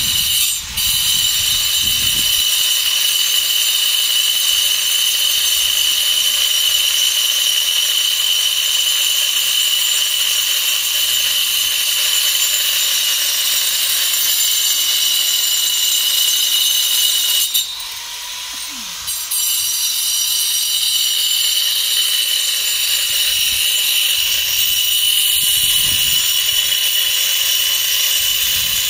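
Electric angle grinder cutting and shaping a stone statue, running with a steady high whine. It eases off briefly about two-thirds of the way through, then bites in again.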